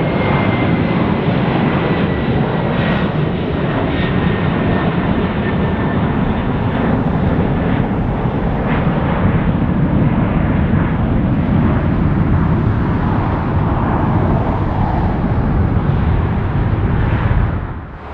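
Boeing 747-400 freighter's four jet engines at takeoff power: a loud, steady roar with a faint whine gliding slowly downward over the first few seconds. The sound drops away sharply just before the end.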